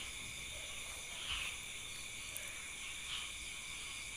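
Night insects chirring in a steady high-pitched chorus of several held tones, with two faint soft noises about one and three seconds in.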